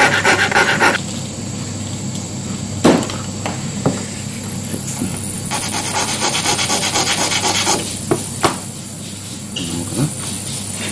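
Watchmaker's screwdriver tip rubbed in rapid short strokes against a handheld India oilstone, a scratchy rasping in two bouts while the blade tip is dressed flat. A few light clicks and taps come between and after the bouts.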